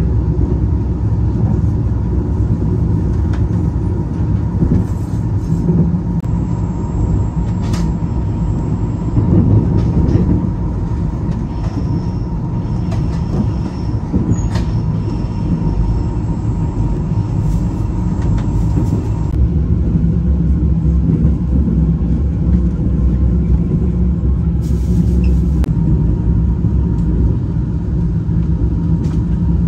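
Passenger train running: a steady low rumble of the carriage in motion, with a thin steady whine and a few faint clicks over it.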